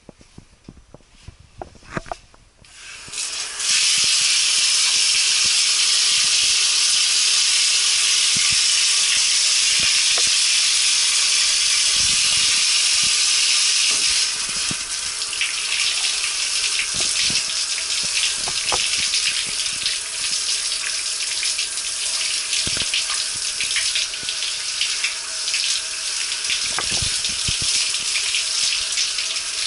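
A few faint knocks, then a hand shower is turned on about three seconds in and sprays with a steady hiss. From about halfway the sound turns uneven and splashy as the water falls on a person's head and body.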